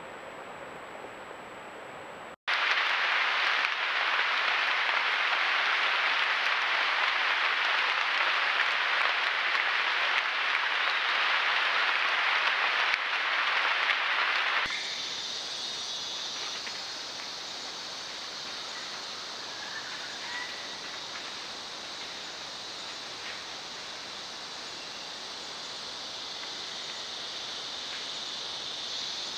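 Steady rain falling on rainforest foliage, cutting in abruptly about two seconds in and stopping just as abruptly around twelve seconds later, followed by quieter, even forest background noise.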